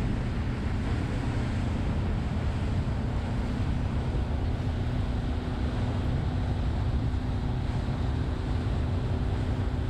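Boat running steadily on plane at about 18 knots: wind on the microphone over the rush of water along the hull and a steady low engine drone.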